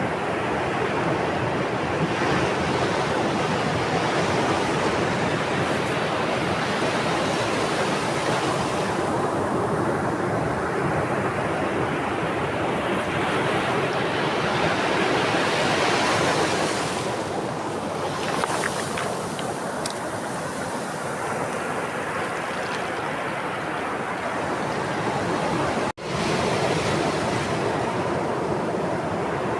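Sea waves breaking and washing up a shore, a steady rush that swells and ebbs every several seconds. The sound cuts out for an instant near the end.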